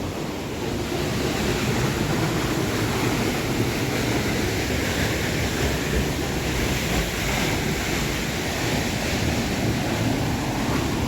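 Waterfall rushing close by, a steady, loud roar of falling water.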